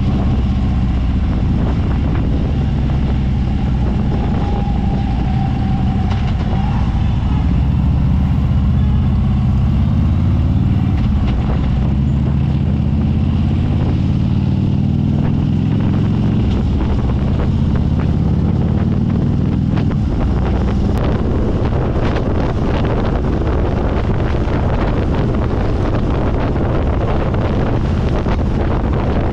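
Harley-Davidson motorcycle's V-twin engine running under way, with wind rushing over the microphone. The engine note sags and climbs again as the bike slows and picks up speed, and the wind rush grows louder about two-thirds of the way through.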